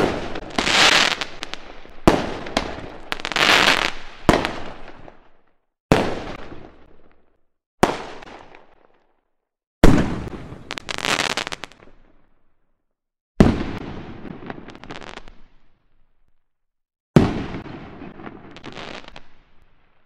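Fireworks exploding one after another: about nine sharp bangs, each trailing off in crackle and fizz, several with a dense crackling spray a moment after the bang, separated by silences of one to three seconds.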